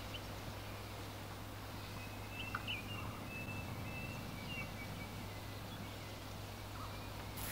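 Steady outdoor rustle in an open grass field, with a few faint, short high calls a little before the middle.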